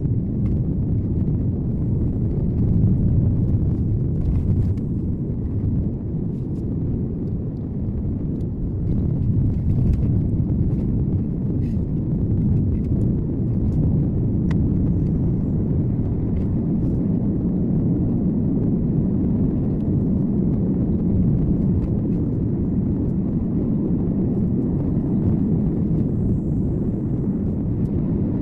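Car driving along a road, heard through a dashcam: a steady low rumble of tyre and engine noise with faint scattered ticks.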